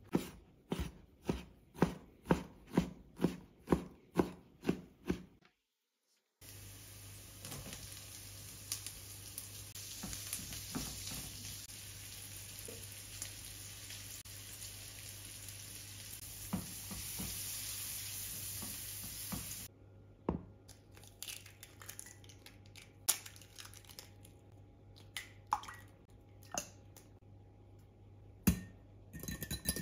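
A chef's knife chopping bacon on a cutting board, about two strokes a second for roughly five seconds. After a short break, chopped bacon and onion sizzle steadily in a frying pan while a spatula stirs and scrapes. About twenty seconds in the sizzling stops, leaving a quieter stretch of scattered light clicks and taps.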